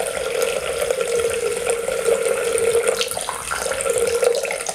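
Sweet red wine poured in a steady stream from a glass bottle into a Thermomix's steel mixing bowl.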